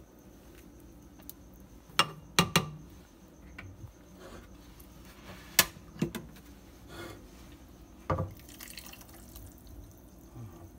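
Silicone spatula scraping thick sauce from the sides of a glass blender jar, with several sharp knocks of spatula and glass. Near the end the sauce is poured from the jar into a ceramic bowl.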